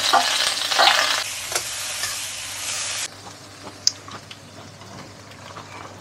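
Sea anemone pieces and green peppers sizzling in a hot wok as they are tipped in and stir-fried with a metal spatula. About three seconds in the sizzle drops suddenly to a faint hiss, with light scrapes and one sharp clink.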